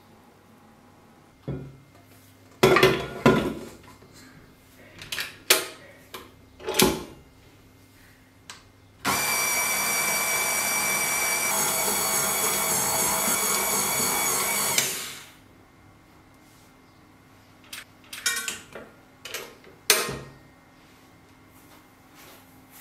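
KitchenAid Artisan stand mixer's motor running steadily for about six seconds, turning its dough hook through bread dough, with a whining hum whose pitch shifts slightly partway through. A few sharp knocks and clatters come before and after it.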